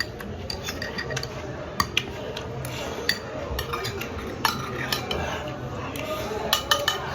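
Eating utensils clinking and scraping against a bowl of stew, with scattered sharp clicks and taps.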